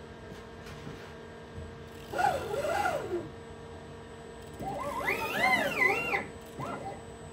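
Axis drive motors of a DIY CNC lathe moving the gang-tool slide, whining in two bursts whose pitch rises and falls as the axes speed up and slow down. The first burst comes about two seconds in, a longer one from about four and a half seconds, then a short chirp near the end, over a steady machine hum.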